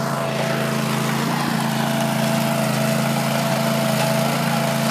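Walk-behind trencher's small engine running steadily, with a constant hum, as its digging chain cuts a trench through lawn.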